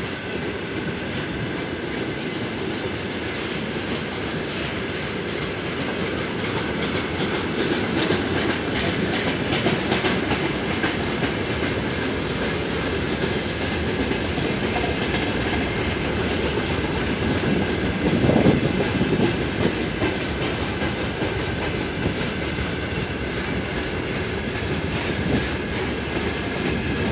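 Freight train wagons, tank cars then open gondolas, rolling past: a steady rumble of steel wheels on rails with a rhythmic clickety-clack, a little louder about eighteen seconds in.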